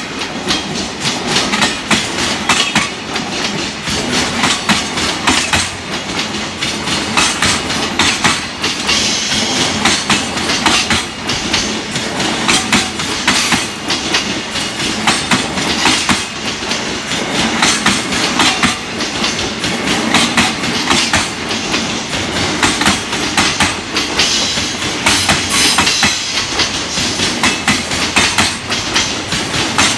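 Freight train wagons rolling over rail joints: a continuous rapid clatter of wheels striking the joints.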